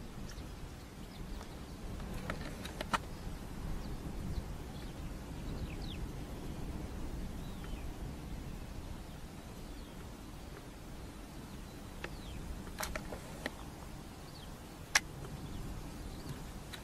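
Open-field ambience: a steady low rumble with faint, scattered chirps of small birds. Three sharp clicks stand out, about three seconds in, then twice near the end.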